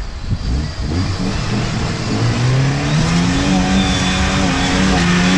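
Off-road truck's engine revving up: its pitch climbs over a couple of seconds, then holds steady at high revs.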